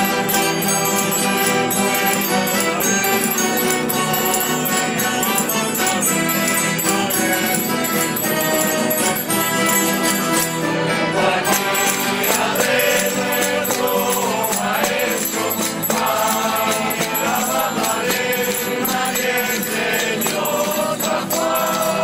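A street string band of guitars, bandurria-type lutes and an accordion playing a devotional folk song while many voices sing along in chorus, with a jingling percussion in the mix.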